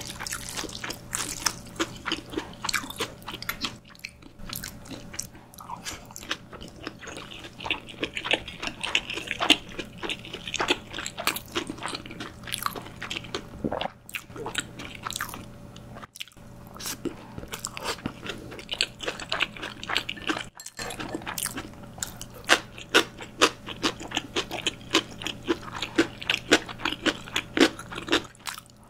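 Close-miked eating sounds: a person chewing jajang ramyun noodles and dumplings, with many small crunchy bites and wet mouth clicks coming irregularly.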